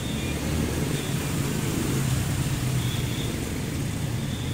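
A motor vehicle engine running with a steady low hum that rises slightly in pitch about halfway through.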